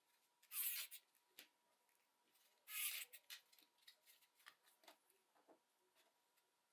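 Quiet handling of a disassembled Logitech G304 mouse's small plastic and metal parts: scattered light clicks and taps, with two short scraping rustles, one about half a second in and one about three seconds in.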